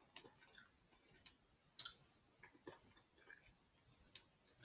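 Near silence broken by a few faint, scattered clicks of snow crab shell being picked apart by hand, the loudest a little under two seconds in.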